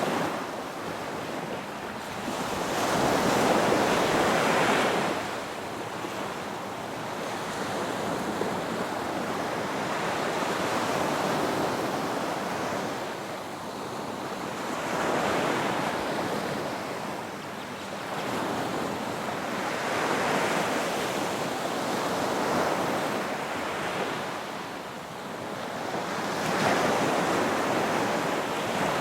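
Ocean waves breaking and washing up on a shore, surging in a swell every few seconds and falling back between, with a steady rush of surf underneath.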